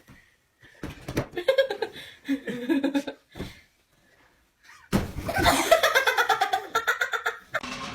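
Laughter in two bursts: a short run of laughing, a pause, then a louder laughing fit that starts suddenly about five seconds in.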